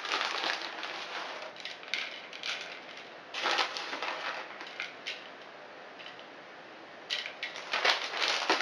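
Plastic bag of grated gruyère crinkling and rustling as the cheese is shaken out into a bowl on a kitchen scale. The rustling comes in irregular spells, louder about three and a half seconds in and again near the end, with a quieter stretch between.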